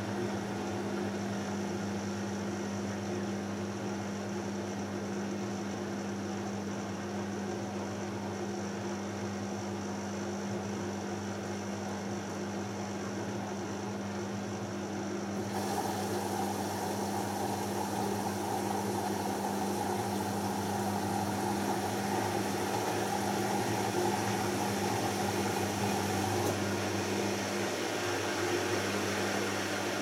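Beko Excellence WMB81445L washing machine in the heating stage of a 60 °C cotton wash, its drum tumbling the load with a steady hum. About halfway a brighter hiss joins and keeps on until near the end.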